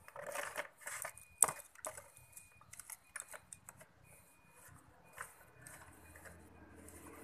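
Metal clinks, taps and scraping of hand tools as a spark plug is refitted into a scooter's engine. The taps are busiest in the first few seconds, with one sharp click about one and a half seconds in, then thin out to scattered light taps.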